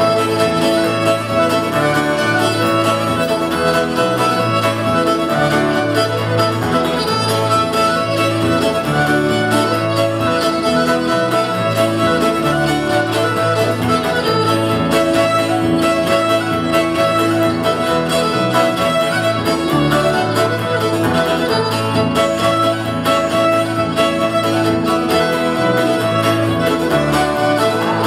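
Old-time fiddle tune played live on fiddle, with strummed acoustic guitar and a bass guitar keeping a steady bass line underneath.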